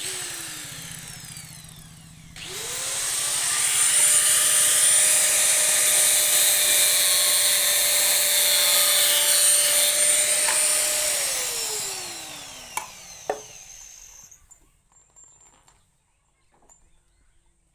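Handheld electric power tool working wood: its motor winds down, is switched on again and runs up to a steady whine with loud cutting noise for about nine seconds, then is switched off and winds down, followed by two sharp clicks.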